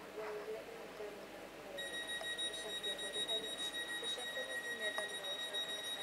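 Train door warning alarm: a steady, high electronic tone that starts about two seconds in, sounding as the doors are about to close at the station stop.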